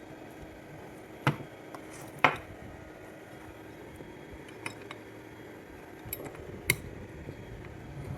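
A few sharp metallic clinks and knocks of small hard objects being handled and set down, the two loudest in the first few seconds and another near the end, over a faint steady hum.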